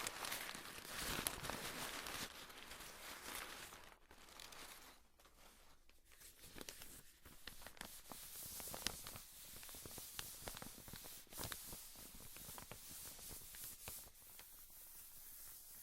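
Paper being torn and crumpled close to the microphone, a continuous crackling rustle with many small sharp crackles, louder in the first few seconds and dipping briefly around the middle.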